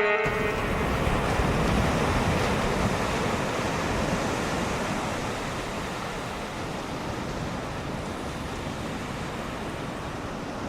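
Ocean surf washing and breaking on a beach, a steady rushing noise with some wind on the microphone, slowly fading down.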